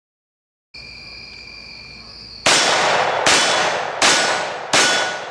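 Four rapid pistol shots from a Glock 20SF in 10mm Auto firing Underwood 135-grain Nosler JHP loads, about three-quarters of a second apart and starting about two and a half seconds in, each trailing off in a long echo. Before the first shot, a steady high insect trill.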